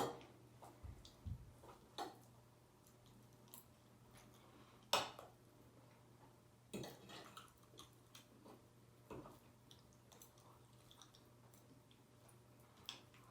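A person eating lasagna: quiet chewing and mouth sounds with scattered clicks and taps, the loudest right at the start and about five seconds in, over a faint steady hum.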